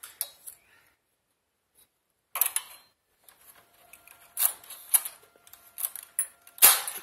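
Metal latch needles of a single-bed hand knitting machine clicking and rattling as a needle pusher pushes a group of them forward. A few clicks come first, then a pause, then a run of sharp metallic clicks with a louder knock near the end.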